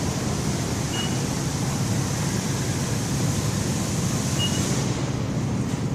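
Steady running noise inside a moving glass elevator car on its way up, with an even low rumble and a high hiss that fades about five seconds in. Two faint short high tones sound about a second in and again near the end.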